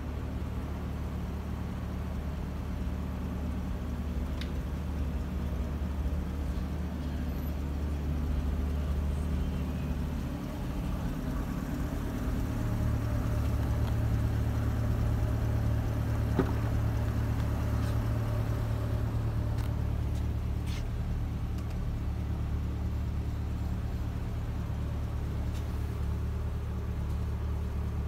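Corvette C8's V8 engine idling steadily with a low hum. About eleven seconds in, its pitch steps up slightly and it gets a little louder.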